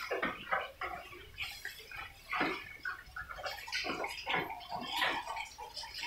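A pen of young pigs grunting and snuffling as they root on a wet concrete floor, in a busy run of short, irregular sounds, a few of them dropping in pitch.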